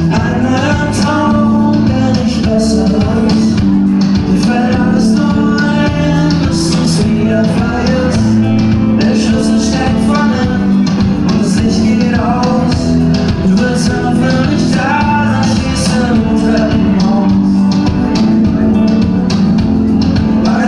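A pop band playing: drums, bass and electric guitar with a man singing over them.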